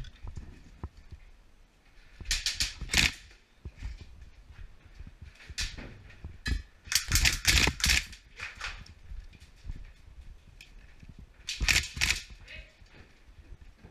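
Tokyo Marui Recoil Shock electric-blowback M4 airsoft rifle firing short full-auto bursts of rapid clicking shots. There are about five bursts, the longest and loudest a little past the middle, with quiet gaps between them.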